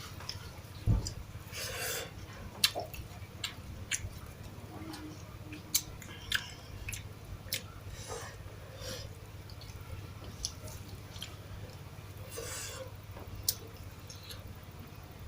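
A person eating rice with sardines up close, chewing with brief wet smacks and many scattered sharp clicks, over a steady low hum.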